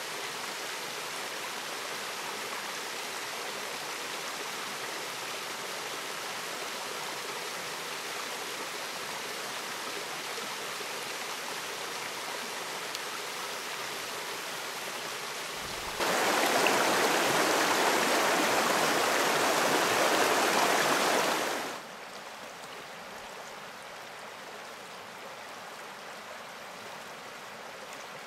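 River water rushing over rock falls and shallow rapids in a steady rush. About sixteen seconds in it turns much louder for some six seconds, then drops to a softer flow.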